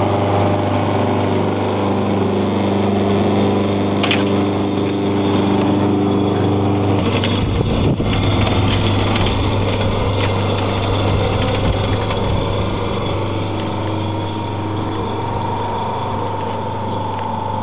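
FuelMaker home CNG refuelling compressor running steadily, a loud electric-motor hum with a deep low tone and a few higher steady tones, compressing mains natural gas into a car's CNG tank. A higher whine joins in about two-thirds of the way through.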